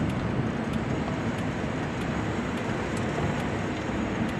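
Self-driving golf buggy moving along, a steady low rumble of its running and tyre noise from on board, with faint ticks now and then.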